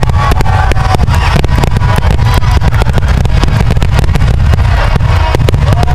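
Aerial fireworks shells bursting in a rapid barrage: many sharp reports a second over a continuous low rumble, very loud.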